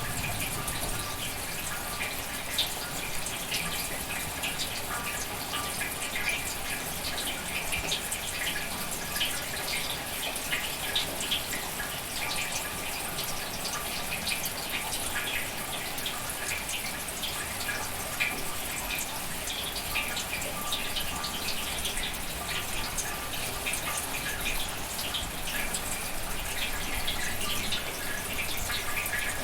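Steady rain falling, with many separate drops ticking through it.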